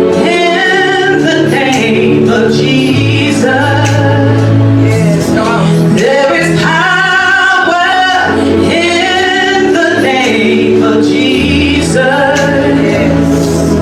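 Gospel song: voices singing over long, held low bass notes.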